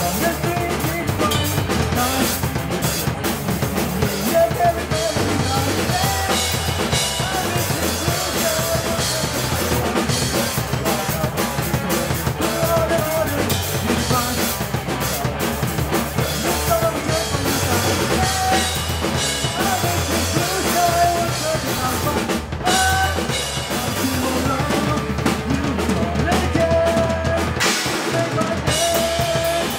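Live rock band playing: a drum kit with kick, snare and rimshots driving under electric guitar.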